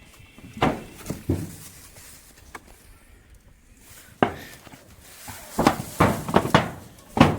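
A series of sharp knocks and clatters from objects being handled and set down, irregularly spaced, with a quick run of them near the end.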